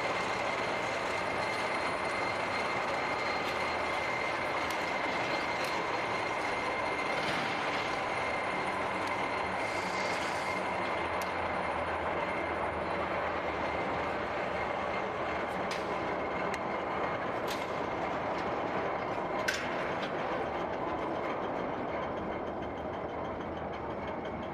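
Electric-motor-driven railway turntable rotating under the weight of a steam locomotive: a steady running rumble with a thin high whine and occasional clicks, growing a little quieter near the end.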